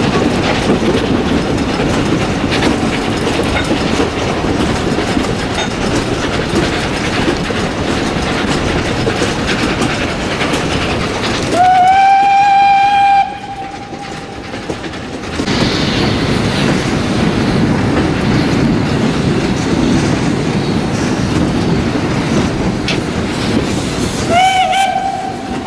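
Narrow-gauge steam train running, the carriages rattling and clicking over the rail joints. The steam locomotive kkStB U 298.102 sounds its whistle: one long single-note blast about halfway through that slides up briefly into its pitch, then a shorter blast near the end.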